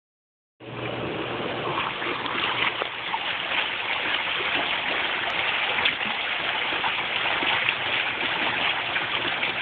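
Hot tub jets running, the water churning and bubbling steadily, starting about half a second in, with a faint low hum in the first couple of seconds.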